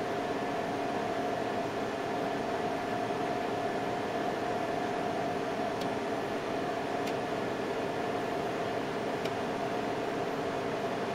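Steady hum and hiss of running machinery, like a cooling fan or air conditioning, unchanged throughout, with a few faint ticks in the second half.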